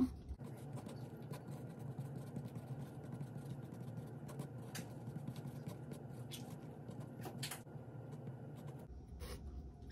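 Pen writing on a paper worksheet: faint scratching with scattered light ticks of the tip, over a low steady room hum.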